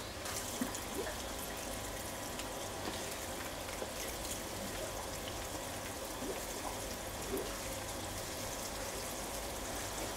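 Water spraying from the drilled holes of a pipe onto filter matting in the plastic tub of a DIY bakki shower, fed by a submersible pond pump: a steady hiss of falling and trickling water.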